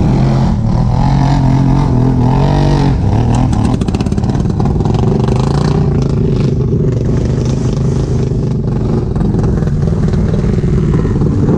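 ATV engine running hard, its pitch rising and falling as the throttle is worked.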